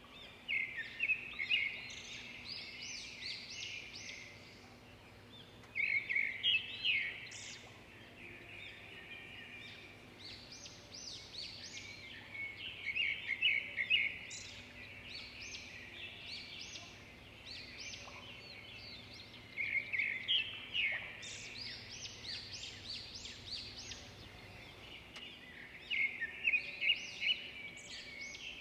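Birds singing in a park, in phrases of quick high chirping notes. Each burst lasts a couple of seconds and comes back about every six seconds, over a faint steady background hum.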